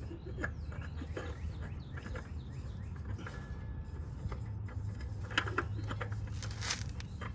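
Quiet outdoor background with a steady low rumble and faint bird chirps, broken by a few light clicks and rubs as a new oil filter is fitted by hand onto the motorcycle engine.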